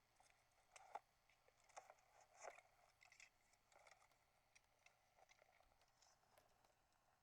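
A camera being carried and handled: faint small clicks and rattles, with a few sharper knocks in the first three seconds that grow sparser afterwards.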